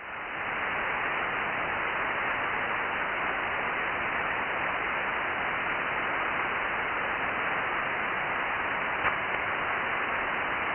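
Steady static hiss from an Icom IC-9700 receiving the RS-44 amateur radio satellite's downlink, the hiss narrowed to voice range as by a single-sideband filter, with no station's voice in it yet. The hiss fades up at the start, and there is a faint click about nine seconds in.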